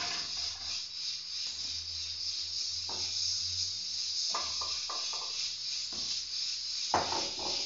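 Steady hiss of steam escaping from a stovetop pressure cooker, under short metal clinks and spoon scrapes as food is tipped from a plastic bowl into an aluminium saucepan, the loudest clatter near the end.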